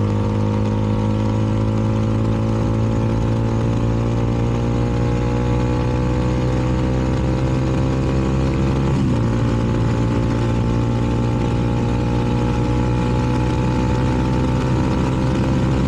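CFMoto 300NK motorcycle's single-cylinder engine with an aftermarket KO exhaust, pulling steadily under way with the revs climbing slowly. The revs dip briefly about nine seconds in at an upshift, then climb again.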